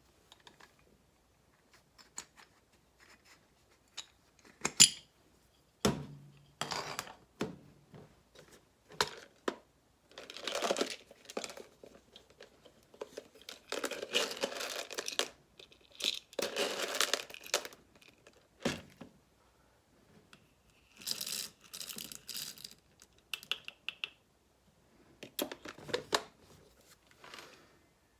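Irregular rustling and crinkling with scattered clicks and knocks, a sharp knock about five seconds in: a bag of home-roasted coffee beans and a coffee grinder being handled.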